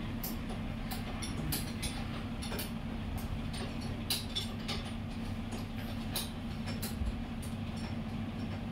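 A steady low mechanical hum under irregular light clicks and clinks, a few each second, like small metal engine parts and tools being handled during a top-end rebuild.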